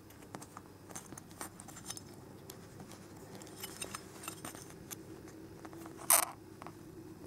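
Fiddly handling of small rubber grommets being pressed into the holes of a thin aluminium bracket: faint scattered clicks and rustles, with one short, louder rasp about six seconds in.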